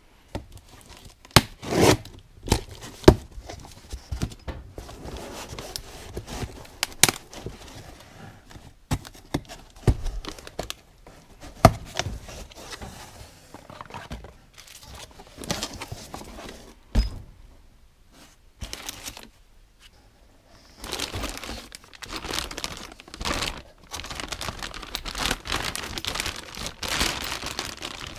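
Scattered sharp clicks and knocks of hard objects being handled, then, about three quarters of the way through, several seconds of continuous crinkling and rustling.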